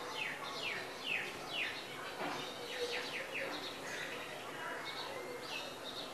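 A bird chirping: a run of quick falling notes, about two a second, that grows fainter after a few seconds.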